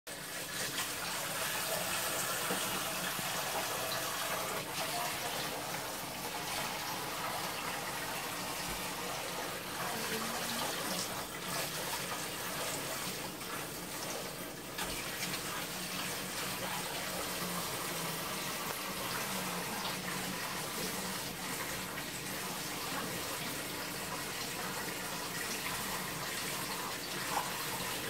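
Kitchen tap running into a sink while dishes are washed: a steady rush of water with a few brief knocks.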